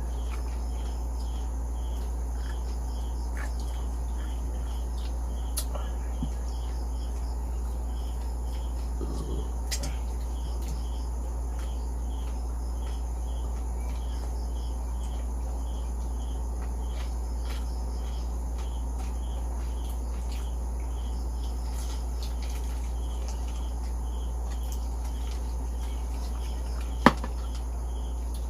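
Crickets chirping in a steady, regular rhythm over a constant low hum, with a few faint clicks and one sharp click near the end.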